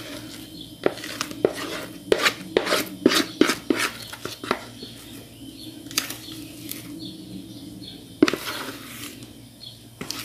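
Spatula scraping and knocking against a mixing bowl as thick cake batter is scraped out into a round metal cake pan: a run of sharp knocks and scrapes, densest about two to four seconds in, with a few more later and one loud knock near the end.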